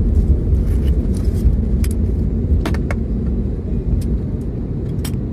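Steady low rumble of an airliner heard from inside the cabin as it rolls along the runway, with a few sharp clicks or rattles around two to three seconds in and near the end.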